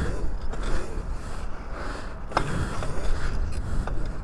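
Electric off-road bike riding over rough dirt: a steady low rumble of wind and ground noise, with rattles and a sharp knock from the bike about two and a half seconds in.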